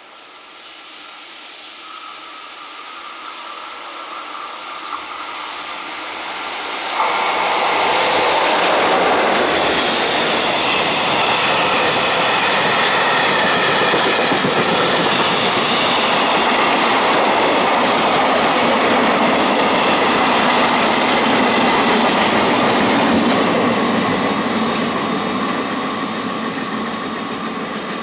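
Double-headed freight train, EF66 and EF210 electric locomotives hauling container wagons and Wam 80000 boxcars, approaching and growing steadily louder. The locomotives pass suddenly about seven seconds in, then the long string of wagons runs by with steady wheel-on-rail noise, fading near the end.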